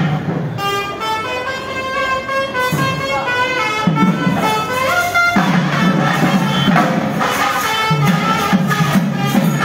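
Temple festival music: a wind instrument plays a melody of long held notes, and about halfway through the drums and hand percussion come back in and carry on.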